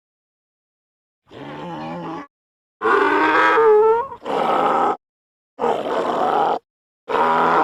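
Donkey braying: a run of about five separate hee-haw calls, broken by short silences. The first call is quieter, and the loudest one, in the middle, glides in pitch.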